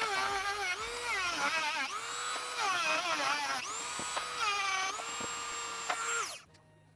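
Dremel rotary tool grinding out a welded bore in an aluminum engine case, opening it up so the shaft will fit. Its high whine dips and recovers in pitch again and again as the bit bites under load, then winds down and stops near the end.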